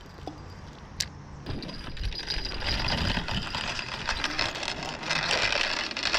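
Fast metallic rattling and jingling, typical of a bell clipped to a fishing rod shaking as a fish pulls on the line. A sharp click comes about a second in, and the rattling starts about a second and a half in and grows louder.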